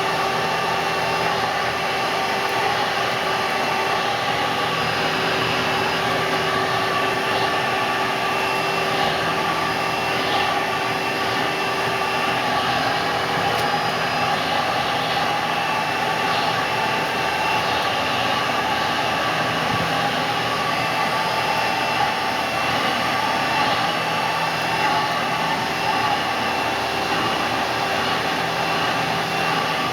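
A 1997 Hoover Dimension Supreme direct-air upright vacuum running steadily and loud while sucking up dirt through its hose, with faint crackles of debris passing through the direct-air fan.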